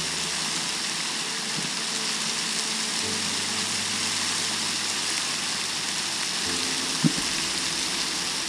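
Small mountain stream of water falling and splashing from a rock face, a steady hiss. One short sharp tap about seven seconds in.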